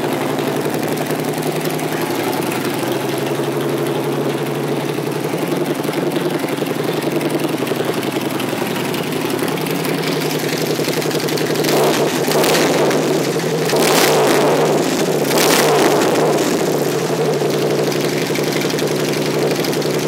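2008 Harley-Davidson Street Glide's 96 cubic inch V-twin running on stock pipes with the baffles removed, idling steadily. In the second half the throttle is blipped three times in quick succession.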